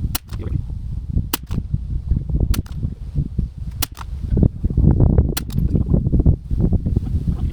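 Anschutz 1761 .22 LR rifle shots, five sharp cracks a little over a second apart, in footage sped up eight times. A steady low rumble of wind on the microphone runs under them.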